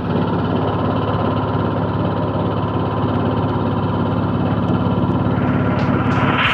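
Floating fish-feed pellet extruder machine running with a steady mechanical hum.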